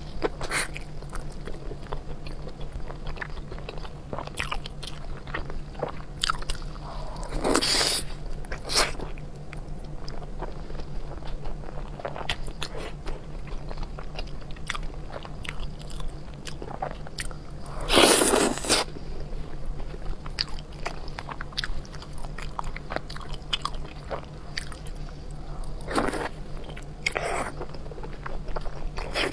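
Close-miked biting and chewing of braised beef tendon: a dense run of short mouth clicks and smacks, with a few longer, louder sounds, the loudest about eighteen seconds in.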